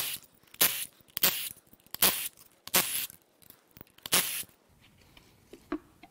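A cordless power tool run in about six short bursts, backing out the bolts that hold the oil pump and balance shaft cartridge on a BMW N26 engine, followed by faint clinks as the loosened cartridge is handled.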